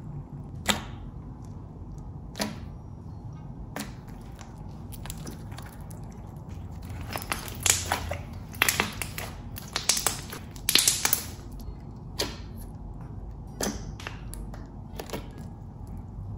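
Pink glitter jelly cube slime, clear-glue slime with cut-sponge cubes, being stretched, squeezed and poked by hand. It gives scattered sharp pops and clicks as the cubes and air pockets are squeezed, with a quick run of them a little past halfway.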